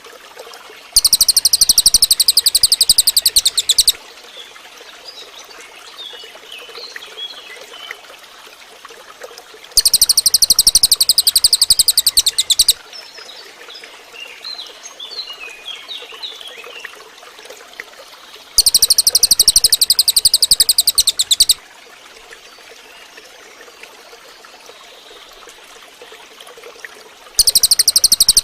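Cililin bird song: a loud, very rapid high-pitched buzzing trill lasting about three seconds, repeated four times about nine seconds apart. Between the trills there are faint short chirps over the steady trickle of running water.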